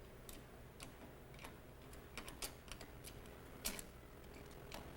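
Irregular sharp metal clicks and ticks from a subway turnstile's mechanism being worked by hand, about a dozen in all, the loudest near the end, over a low steady hum.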